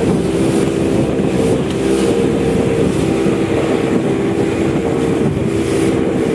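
Yamaha 60 hp two-stroke outboard running steadily with the boat under way, a steady engine drone over the rush of wind and water.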